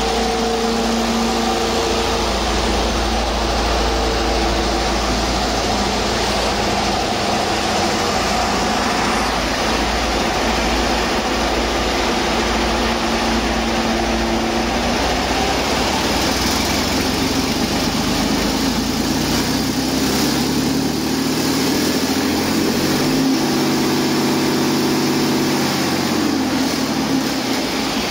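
2017 Detroit Diesel DD15 inline-six diesel engine running on a test run, idling steadily, then revving up gradually from about halfway through, holding the higher speed for a few seconds, and dropping back to idle near the end.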